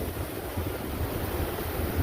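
Ocean surf washing at the shoreline, with wind buffeting the microphone in an uneven low rumble.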